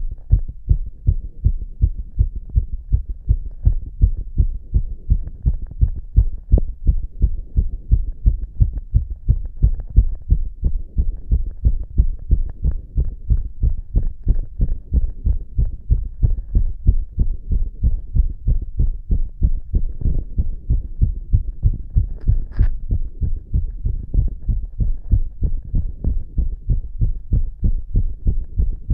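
A man's heartbeat heard through a stethoscope chest piece pressed on his chest: quick, regular low thumps, racing after inhaling poppers (amyl nitrite). A brief sharp click cuts in about two-thirds of the way through.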